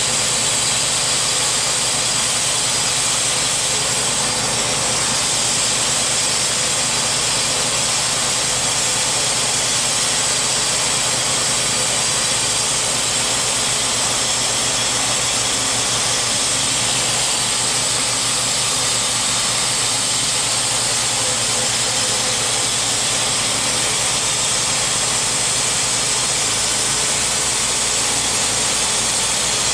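Gas engine of a Timberking B-20 portable bandsaw mill running steadily before a cut, with a steady hiss over it.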